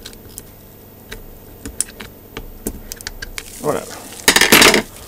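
Small, light metal clicks and taps as screwdrivers lever at the rotator's gear plate and gears. Near the end comes a short, loud rushing, hiss-like noise.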